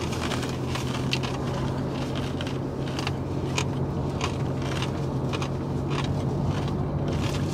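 Crispy fried pork skin (chicharrón) being chewed close to the microphone: scattered, irregular sharp crunches over a steady low hum.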